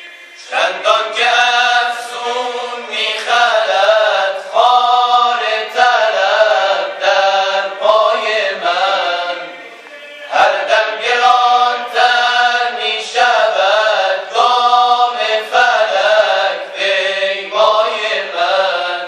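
Male vocal group singing tawashih, Islamic devotional chant, without instruments, in long melismatic phrases. The singing comes in about half a second in, pauses briefly about ten seconds in, then resumes.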